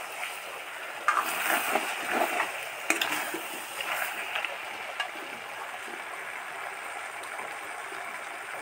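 Water boiling in a steel pot, with a metal ladle stirring and clinking against the pot a few times in the first half, then steady bubbling.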